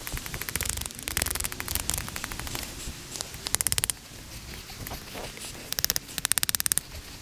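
Fox Aruru folding knife carving a notch into a wooden stake: several bursts of rapid, crackling scrapes as the blade bites into and shaves the wood.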